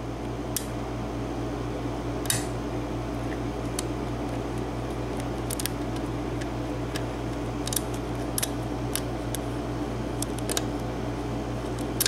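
Irregular light metallic clicks of a lock pick working the pin stacks of a Sargent cylinder lock, over the steady hum of a small room air conditioner.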